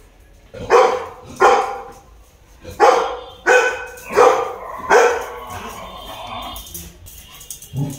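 Golden retriever barking: two barks about a second in, then four more in quick succession.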